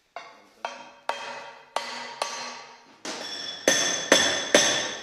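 About nine hammer blows on steel, each ringing out with a clear metallic tone, roughly two a second, the last three the loudest, while the crew work to knock loose the bolted rear armour plate of a Panzer IV hull.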